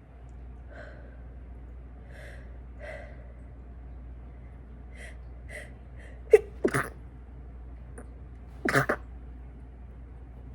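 A woman sneezing. Several faint breathy catches build up, then two quick sharp sneezes come a little past halfway, and a louder, longer sneeze comes near the end.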